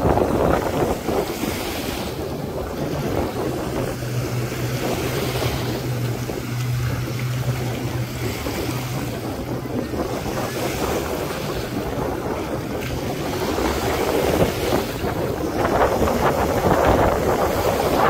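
Surf washing onto the beach, with wind rushing over the microphone. A steady low hum runs underneath from about three seconds in until about eleven seconds.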